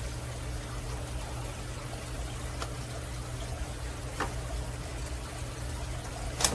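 Steady low background hum with a few faint clicks, and a sharper click near the end.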